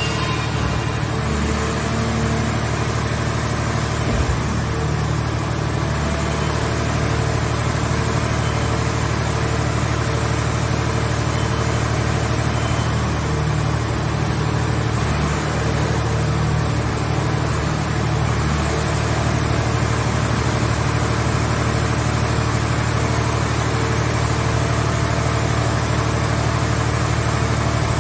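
A removable scrap car shell baler's power unit running steadily with a continuous low engine drone, and a single knock about four seconds in.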